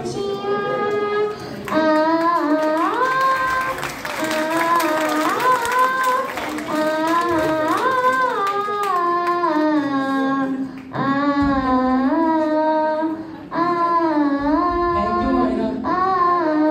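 A four-year-old girl singing solo, a slow melody of long held notes that bend and slide in pitch, with two short breath pauses between phrases near the end.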